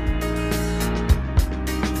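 Background music: sustained chords with low drum hits.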